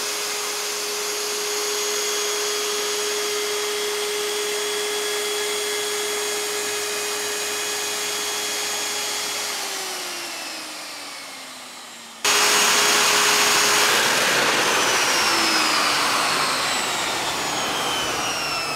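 Electric plunge router running at a steady high pitch while routing a plywood former, then winding down with a falling pitch. It comes back abruptly at full speed and slowly winds down again near the end.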